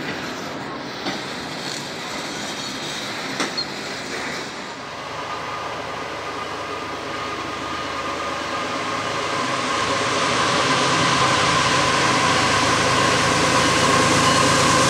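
Open-top CSX freight cars rolling past on the rails, with a few sharp clicks of wheels over rail joints. About four seconds in, the sound gives way to a CSX freight train approaching head-on, its rumble growing steadily louder, with a steady high-pitched tone that strengthens toward the end.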